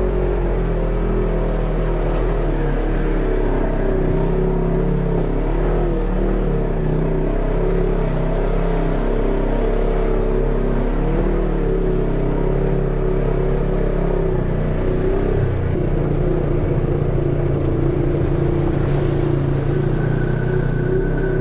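Polaris side-by-side UTV engine running while driving a rocky dirt trail, heard from onboard, its pitch rising and falling with the throttle. The engine note changes about three-quarters of the way through.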